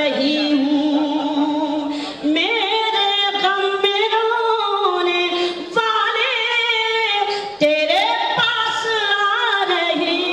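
A woman's voice singing a line of Urdu poetry in tarannum, the melodic chant of a mushaira, unaccompanied through a microphone. It comes in long held notes that glide up and down, with short breaks between phrases about two, six and seven and a half seconds in.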